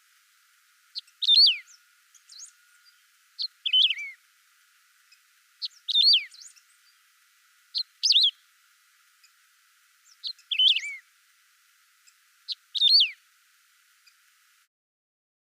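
Canário-do-campo (wedge-tailed grass-finch) singing: six short, repeated song phrases about every two seconds, each a quick high note followed by a fast downward-sliding trill, with faint chips between. The song stops near the end.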